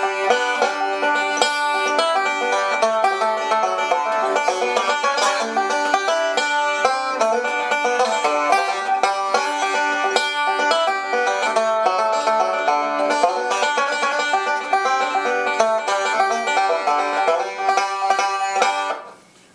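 1931 Gibson Style 1 conversion banjo with a Yates tone ring and resonator, picked in a steady stream of quick notes. The playing stops near the end.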